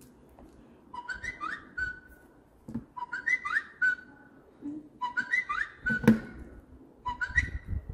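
A short whistled phrase of a few quick notes, with falling slides, repeated four times about two seconds apart. About six seconds in there is a sharp tap as a phone is set down on a plastic table.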